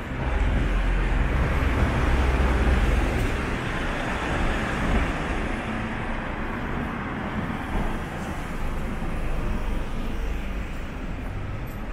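Road traffic: a vehicle passes close by, loudest in the first few seconds, then fades into a steady traffic hum with low rumble.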